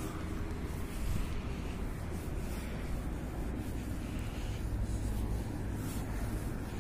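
Outdoor street ambience: a steady low rumble of wind and distant traffic, with faint scuffs of footsteps on paving stones.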